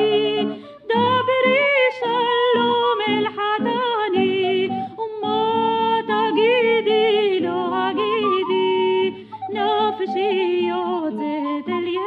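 A woman singing a Hebrew song to a melody of oriental origin, her line wavering and ornamented with quick bends in pitch, over an instrumental accompaniment; the voice pauses briefly near the end and comes back in.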